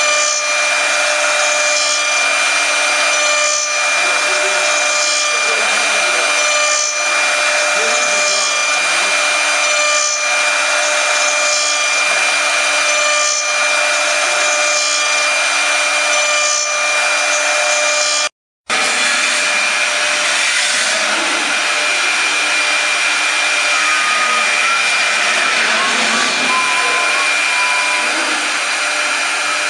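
Multi-spindle CNC wood-carving lathe cutting wooden furniture legs: the router spindles whine at a steady pitch over the hiss of the cutters chipping the wood, with a faint pulse about every second and a half as the workpieces turn. The sound cuts out for a moment about two-thirds of the way through.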